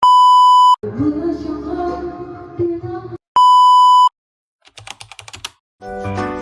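Two loud, steady electronic bleep tones, each under a second long, about three and a half seconds apart, with a short stretch of voice or music between them. A quick run of light clicks follows, then music starts again near the end.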